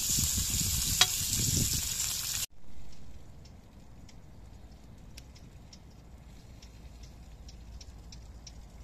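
Bell pepper pieces sizzling in a hot metal pan over a campfire while they are turned, with one sharp click of metal on the pan about a second in. The sizzle cuts off after about two and a half seconds, leaving a much quieter background with faint scattered ticks.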